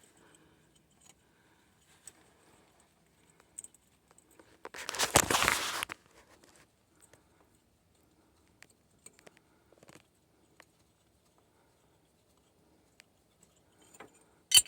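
Hands and tools working a cap off a hydraulic control valve on a backhoe: scattered faint clicks, a noisy scraping rush lasting about a second about five seconds in, and a sharp click near the end.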